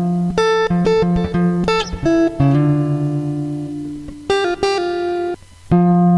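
Electric guitar playing a melodic lead line of single notes, some of them held, with a brief break about five and a half seconds in.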